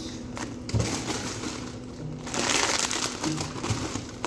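Plastic packaging crinkling and rustling as food is handled and put into a fridge, with a soft knock about a second in and a louder spell of crinkling in the middle.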